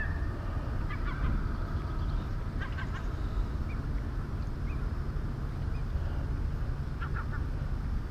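Seagulls giving a few short calls, about a second in, around three seconds in and again near the end, over a steady low rumble.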